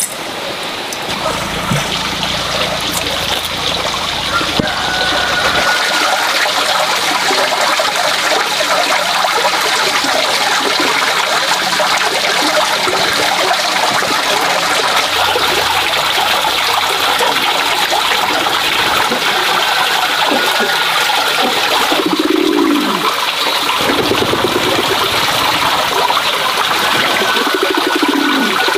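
Water pouring steadily from a bamboo pipe into a plastic basin, a continuous splashing trickle. A pigeon coos about two-thirds of the way through and again near the end.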